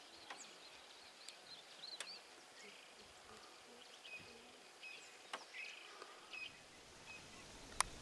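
Faint outdoor ambience with small birds chirping high and thin, short repeated chirps throughout, and a few sharp clicks.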